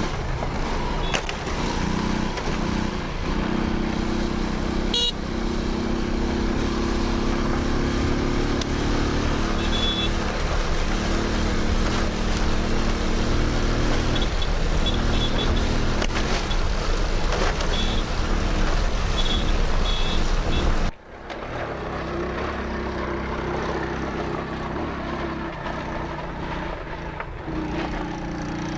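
Small step-through motorcycle engine running steadily as it is ridden along at speed. About three-quarters of the way through the sound drops suddenly, then carries on quieter and more muffled.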